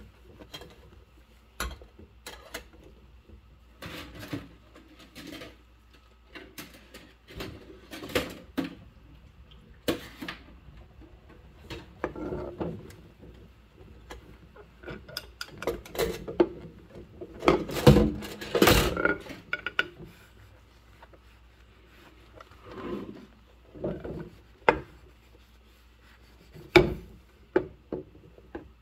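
Dishes hand-washed in a sink full of suds with rubber-gloved hands and a mesh scrubber: rubbing and scrubbing with irregular clinks and knocks of cutlery and dishes, loudest in a cluster of clatter a little past the middle.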